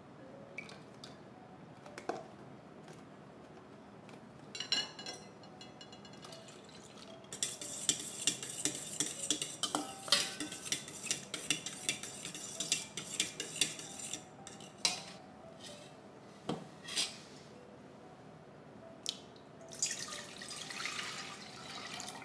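Whisk beating egg and coconut milk in a stainless steel bowl: a fast run of metallic clicks and scrapes against the bowl lasting several seconds, with a few single clinks before and after. Near the end, water poured from a glass jug splashes into a stainless steel pot.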